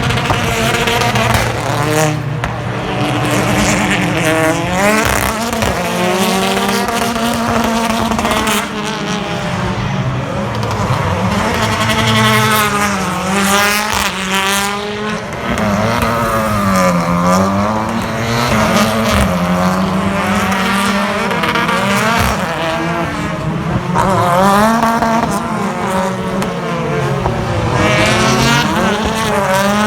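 British Touring Car Championship cars racing, their 2.0-litre turbocharged four-cylinder engines revving up and down through gear changes. Several engines overlap, rising and falling in pitch.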